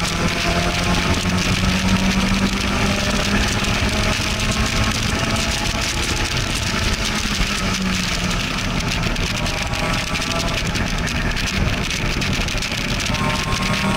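Open-top car at speed on a racing circuit, heard from inside the cockpit: the engine runs steadily under load over constant wind and road noise. The engine tone fades somewhat about halfway through as the car slows.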